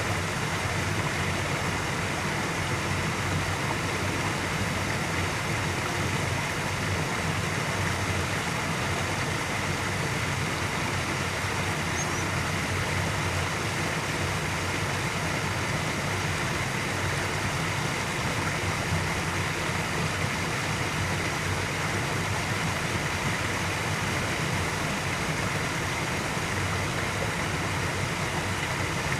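Steady, unbroken outdoor background rumble and hiss with no distinct events.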